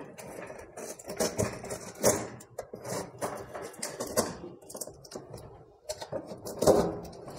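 Plastic packing tape being picked at and peeled off a cardboard box: irregular crackling, clicking and short tearing sounds, loudest about two seconds in and near the end.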